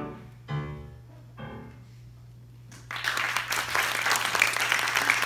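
The last short notes of a recorder and piano ensemble, about half a second and a second and a half in, ring out and fade. About three seconds in, an audience starts applauding.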